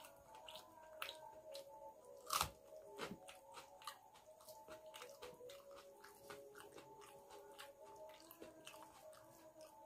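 Close-up mouth sounds of a person eating rice and curry by hand: chewing and lip smacking as a quiet run of short clicks, with one louder click about two and a half seconds in. A faint steady hum sits underneath.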